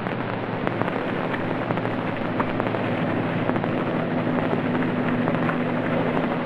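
Crackling, hissy old film soundtrack noise, with a steady low hum of several tones that sets in about a second and a half in.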